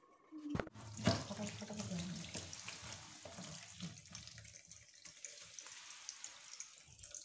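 Kitchen tap running into a steel bowl of water in a stainless steel sink, starting about half a second in, with hands splashing and washing cut brinjal pieces in the bowl.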